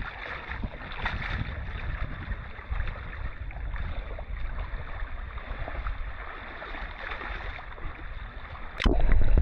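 Steady wash of small waves and wind at a beach shoreline. Near the end it gives way abruptly to a louder low rumble.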